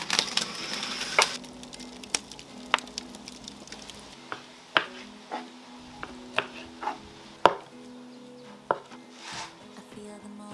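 Knife chopping on a cutting board: about ten sharp knocks, irregularly spaced, over soft background music.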